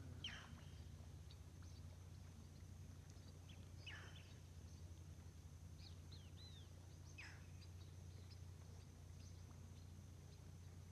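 Faint riverside ambience: a bird gives a short falling whistle three times, about every three and a half seconds, over a steady high hiss and a low steady rumble.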